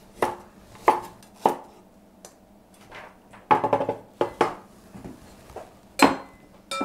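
A Chinese cleaver chops courgettes on a wooden cutting board. There are three single chops about half a second apart, then a quick run of chops. Near the end comes one loud knock on the board, then a clink with a brief ring as the pieces go into a glass bowl.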